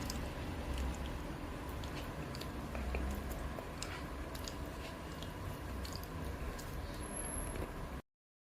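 Scattered small clicks and crinkles of handling over a steady low hum, cutting off abruptly about eight seconds in.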